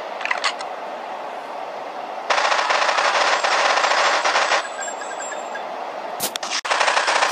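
Rapid machine-gun fire: a few short shots just after the start, then a dense burst lasting about two seconds in the middle, and two sharp cracks near the end, over a steady hiss.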